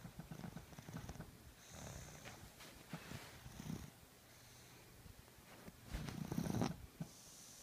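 Snoring in slow, recurring breaths: low fluttering snores, the loudest about six seconds in, with soft hissy breaths between them.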